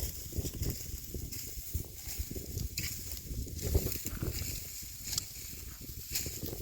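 Irregular dry rustling and crackling, with a low rumble of wind on the microphone.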